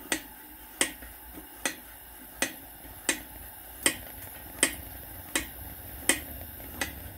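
Hand pump of a lit Tilley paraffin pressure heater being worked, a sharp click at each stroke, about one every three-quarters of a second. The strokes are pressurising the fuel tank to feed more fuel to the burner.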